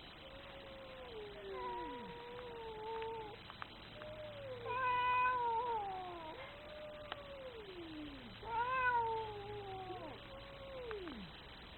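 A domestic cat yowling in a series of about five long, drawn-out wails, one after another, most of them sliding down in pitch at the end.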